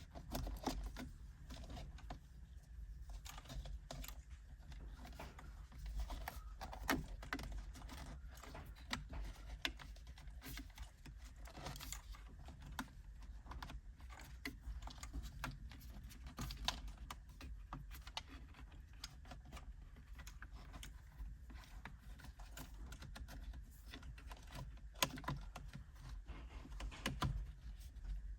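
Faint, irregular small plastic clicks and taps from handling a cruise control switch and tucking its flat wire under the plastic tabs of a steering wheel, with a few sharper clicks near the end.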